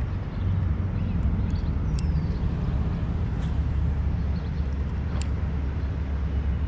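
Steady low outdoor rumble with an even hiss over it, and a few short, high chirps from small birds, one falling in pitch about two seconds in.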